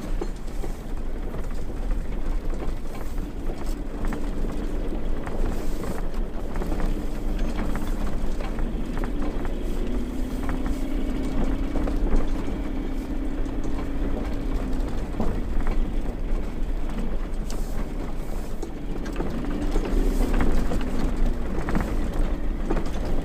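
Toyota Land Cruiser 80's 4.5-litre straight-six running under way: a steady engine drone that drifts in pitch and is strongest around the middle, over rumbling road noise and frequent small knocks and rattles.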